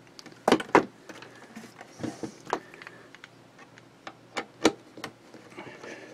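Scattered clicks and knocks of a metal CB radio case and its loose screws being handled on a bench, the loudest a quick pair about half a second in and another about four and a half seconds in.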